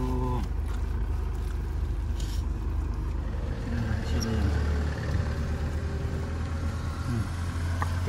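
Low, steady rumble of an idling car engine, with quiet voices.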